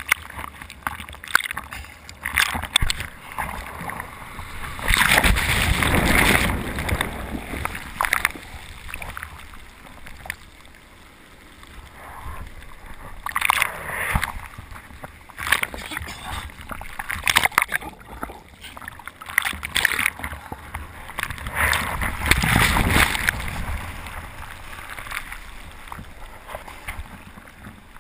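Sea water sloshing and splashing over the front of a bodyboard as it is paddled out through surf, with several louder rushes where broken waves wash over the board.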